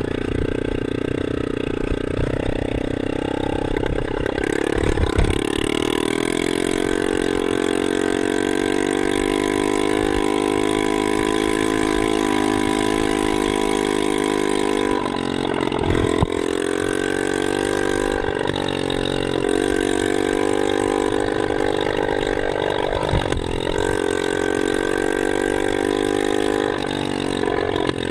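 Enduro dirt bike's engine running at a steady cruising throttle, with a short drop in revs about halfway through and a few brief knocks.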